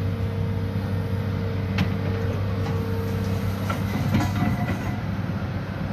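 Excavator engine running steadily while it lifts a steel trench shield panel on its cables. A few sharp metal clanks, one about two seconds in and a cluster around four seconds, as the shield swings up and its spreader pipes shift.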